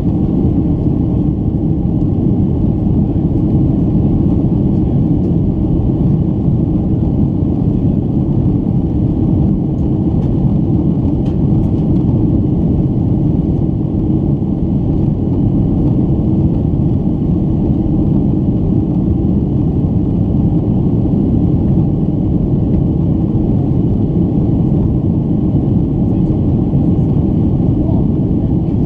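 Boeing 767 cabin noise in the climb after takeoff: a steady low roar of the jet engines and rushing air, with a faint steady whine above it.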